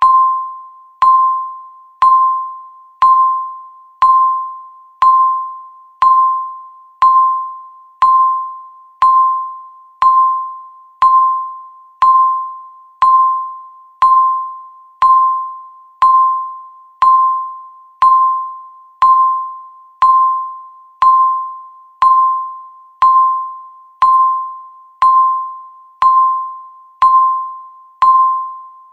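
Countdown timer beep sounding once every second, each beep the same single pitch, struck sharply and fading away before the next: the timer ticking off the seconds.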